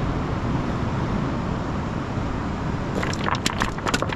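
Steady wind rumble on the microphone, then, about three seconds in, a quick run of sharp clacks as a large flounder is laid down on the beach cobbles and the stones shift underfoot.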